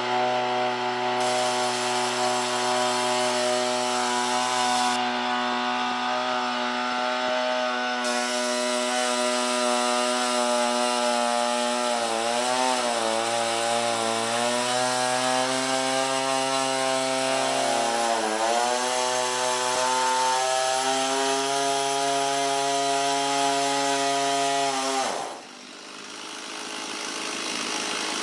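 Small two-stroke engine of a STIHL KombiSystem power tool running at high speed, its pitch dipping briefly twice as it takes load, as when cutting wood. It cuts off about three seconds before the end, followed by a fainter noise that swells.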